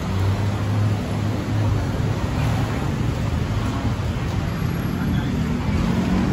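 City street traffic: motorbike and car engines running close by, with a steady low engine hum strongest in the first two seconds and a constant road noise.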